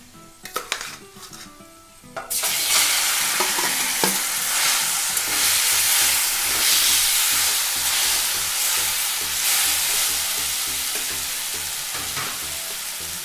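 Boiled taro leaves tipped into hot mustard oil in a metal kadai: a few clicks and scrapes of the bowl and spatula, then about two seconds in a sudden loud sizzle as the wet greens hit the oil. The sizzle carries on while the greens are stirred, slowly easing.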